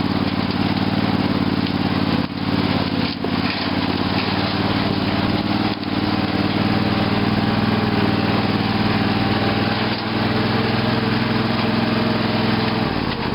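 Lawn tractor's Briggs & Stratton 18.5 hp Intek engine running steadily as the tractor is driven off-road, with a few brief dips in loudness in the first half.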